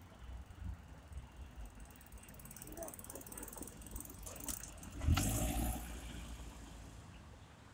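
Street traffic: a road vehicle running close by, loudest about five seconds in, over a steady low rumble.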